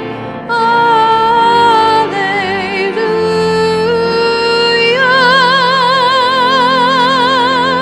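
Hymn singing: a single voice with vibrato over sustained instrumental accompaniment, moving through several notes and then holding one long note near the end.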